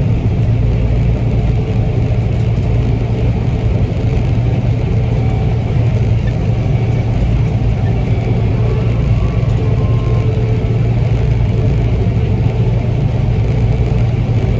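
Gleaner combine running while harvesting soybeans: a loud, steady drone of engine and threshing machinery with a mechanical rattle over it, heard from inside the cab.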